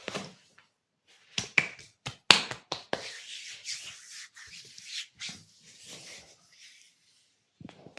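Massaging hands: a quick run of about six sharp clicks from the hands about a second and a half in, then hands rubbing steadily on skin for several seconds.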